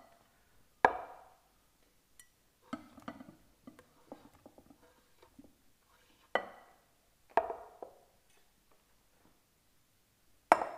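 Sharp knocks and clinks, each with a brief ring, and some softer clatter between them, as quartered tomatoes are gathered off a wooden chopping board into a glass bowl.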